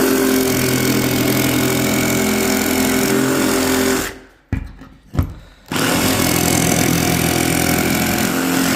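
Jigsaw cutting out a socket hole in a splashback panel: the saw runs for about four seconds, stops briefly with a couple of knocks, then runs again for about three seconds.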